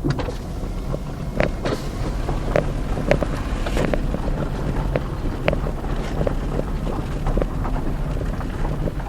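Fiat Argo engine running steadily, a low hum, with scattered light clicks and knocks throughout.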